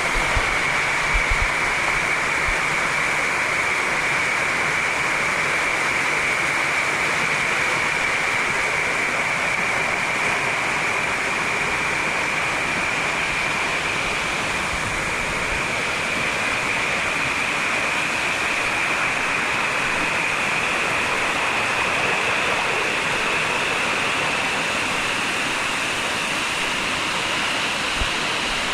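Waterfall rushing: a steady, even sound of water pouring and splashing down rock, its hiss slowly brightening. A few low bumps come in the first couple of seconds and one near the end.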